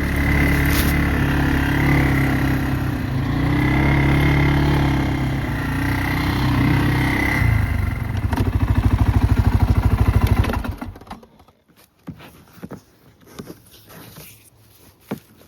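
A small vehicle engine running while riding, its pitch rising and falling, then settling into an even pulsing idle and shutting off about ten and a half seconds in. A few light scattered steps or knocks on leaf litter follow.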